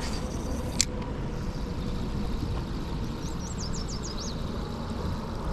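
Steady rush of a fast-flowing mountain river, with one sharp click about a second in and a short run of quick, high bird chirps past the middle.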